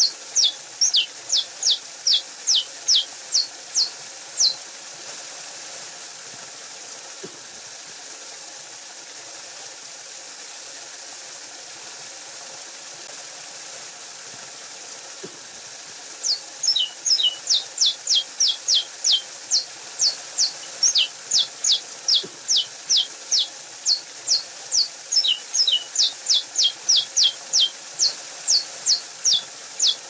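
Saffron finch singing: a run of quick, high notes, each sliding downward, about three a second. The song breaks off about four seconds in and starts again, a little faster, about sixteen seconds in, over a steady faint hiss.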